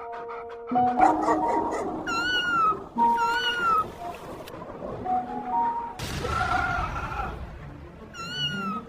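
Kitten meowing about four times in short, high, rising-then-falling cries, one of them harsher, over soft background music of held notes.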